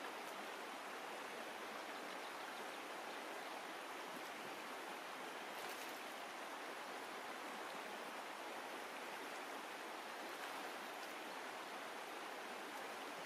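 Shallow, rocky stream running steadily over stones: an even, unbroken rush of water.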